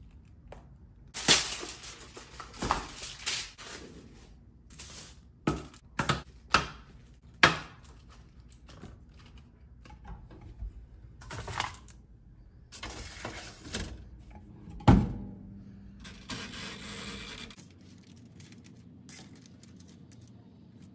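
Kitchen food-prep handling: irregular knocks, clicks and rustles as frozen beef patties are taken from their box and laid on a foil tray, with one sharp knock, the loudest, about 15 seconds in.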